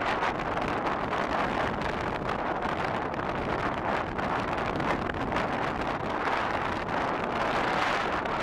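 Strong wind blowing across the microphone: a steady rushing noise with slight swells.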